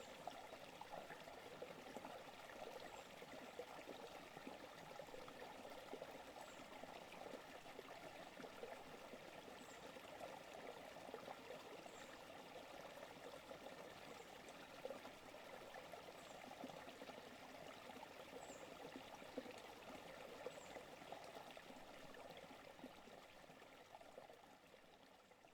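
Forest creek flowing and trickling in a steady, faint wash of water sound that fades out near the end.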